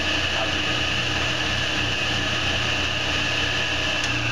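Table saw with a 10-inch blade running free at full speed, a steady high whine over a low motor hum. A faint click comes near the end, and the whine then starts to drop as the blade begins to coast down.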